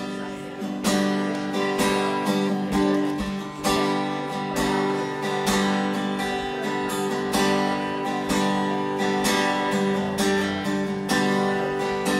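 Instrumental intro of an indie-folk band: acoustic guitars strumming chords about twice a second over sustained held notes.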